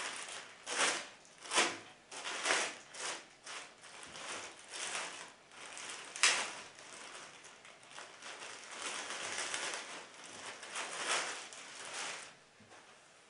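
Clear plastic packaging bag crinkling and rustling in irregular bursts as a cap is pulled out of it, with one sharp crackle about halfway through. It stops about a second before the end.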